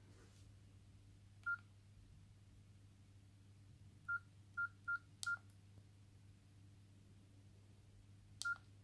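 Nokia E50 mobile phone keypad tones: six short beeps, all the same pitch, as its keys are pressed. One comes about a second and a half in, four follow in quick succession around the middle, and one comes near the end, some with the click of the key.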